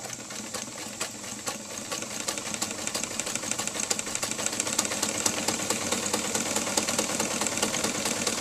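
White 782 electric sewing machine, run by its knee pedal, sewing a wide zigzag stitch: the motor hums and the needle mechanism clatters in a fast, even rattle that grows louder over the first few seconds and then holds steady.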